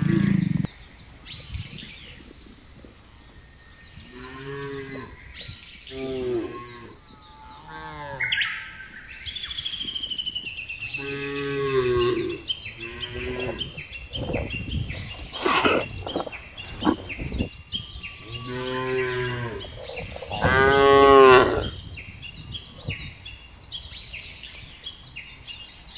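Cattle mooing, about seven separate calls coming in groups, the loudest about 21 seconds in.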